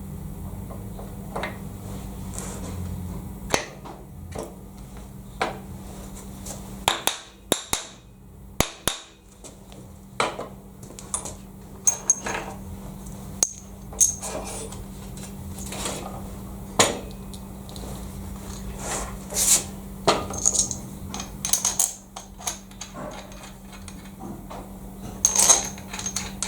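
Irregular metallic clinks and knocks of tools and steel parts being handled on a milling vice, some with a brief ringing tone, over a steady low hum.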